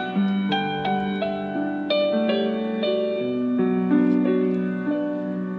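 Slow instrumental background music: a melody of separate notes, a new one roughly every half second, over held lower chords.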